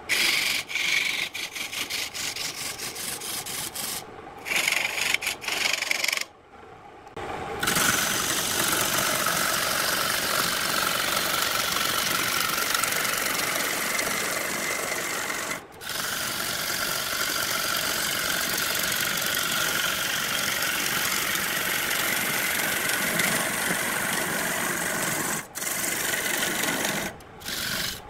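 Gouge cutting into a spinning wooden vase blank on a wood lathe: a steady scraping hiss of shavings coming off, broken by a few short pauses, the longest about six seconds in.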